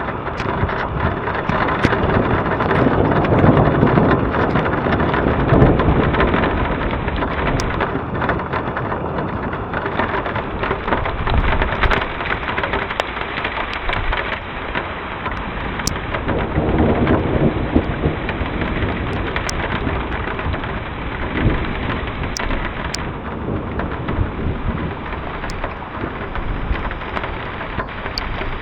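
Heavy rain falling steadily during a thunderstorm, with rolling thunder swelling twice: from about two to six seconds in, and again around sixteen seconds in. Scattered sharp ticks of drops hitting sound through the rain.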